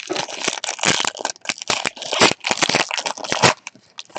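A trading card pack's foil wrapper being torn open and crinkled by hand, a dense run of crackling that stops near the end.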